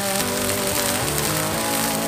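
Steaks searing in hot oil in a frying pan, a steady sizzle, with music playing a melody over it.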